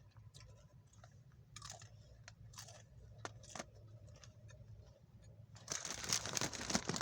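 Someone chewing a crunchy Nacho Cheese Doritos Locos hard-shell taco: scattered small crunches and mouth clicks, then a louder, longer crunching noise near the end.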